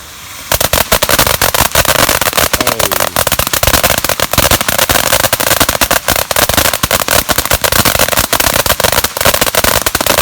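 Firecrackers going off in a rapid, unbroken crackle of small bangs that starts suddenly and keeps up for about ten seconds.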